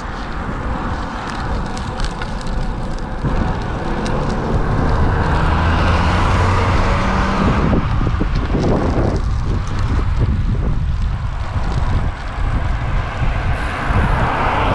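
Wind rushing over a bike-mounted camera microphone at riding speed, mixed with road-bike tyres on asphalt. A car passes about eight seconds in.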